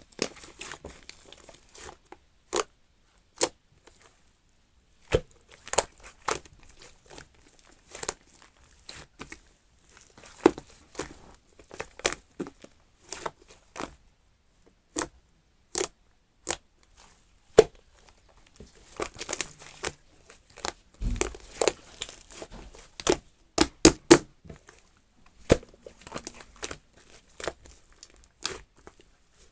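Shaving-foam slime being squished and stretched by hand, giving sharp irregular clicks and pops with soft crackling in between, and a quick run of pops a little after the middle.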